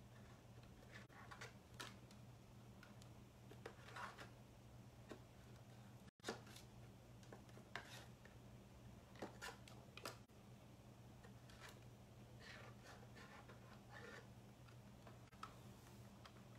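Near silence: room tone with a faint steady low hum and scattered faint clicks and rustles.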